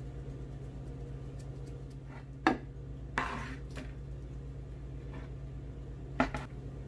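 Kitchenware clattering: a sharp knock, then a knock with a short rattling clatter, and near the end a quick double knock, over a steady low hum.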